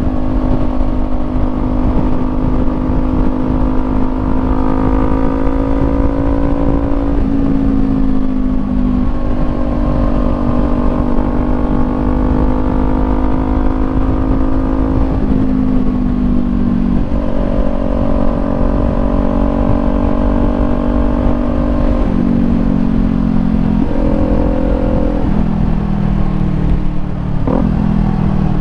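Kawasaki Ninja 400's parallel-twin engine running under way through a Leo Vince GP Corsa EVO slip-on exhaust. The engine note holds steady for stretches and steps to a new pitch several times, settling lower toward the end.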